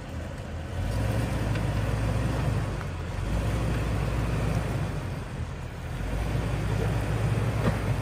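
Jeep Wrangler LJ's 4.0-litre straight-six engine pulling at crawling speed over rocks and mud, its note getting louder about a second in, easing off twice and rising again as the throttle is worked in surges.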